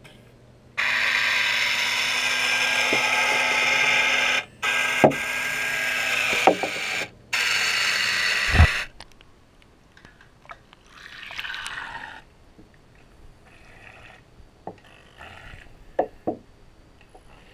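Toy submarine's small electric motor running steadily with water noise, heard underwater, cut off abruptly twice for a moment and then stopping about nine seconds in; after that, only faint water sounds and a few clicks.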